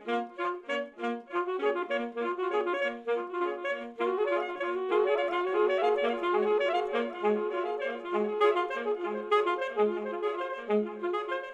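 Alto saxophone playing a quick repeating pattern of short notes, layered with its own delayed repeats from live computer processing into an overlapping, patterned texture. The texture thickens and grows louder about four seconds in.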